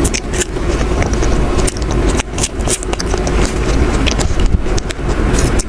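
A person biting into and chewing a strawberry, heard as many short irregular clicks and smacks over a steady low rumble.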